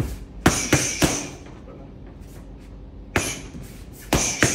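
Punches landing on boxing focus mitts in sharp smacks: a quick three-punch combination about half a second in, a single hit a little past three seconds, and two more hits near the end.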